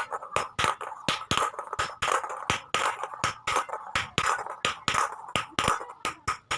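Background electronic music with a quick, slightly uneven beat of sharp strikes.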